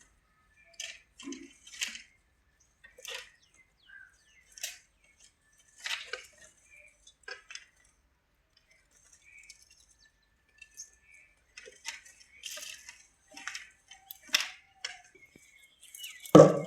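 Goats tearing and chewing grass close by: irregular short, crisp crunches and rustles. Near the end a goat gives one loud bleat.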